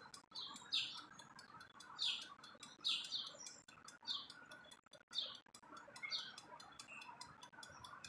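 A small bird chirping over and over: short, high calls that slide downward, roughly one a second, over a faint steady background.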